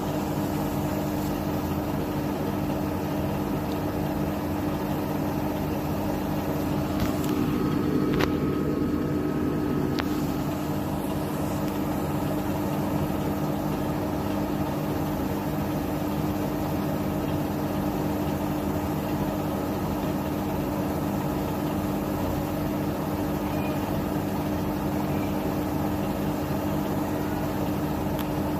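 Bosch Serie 6 WAT28490NL 8 kg front-loading washing machine on its spin cycle, the drum spinning fast with a steady motor whine and hum. The sound swells slightly, with a couple of faint clicks, around eight to ten seconds in.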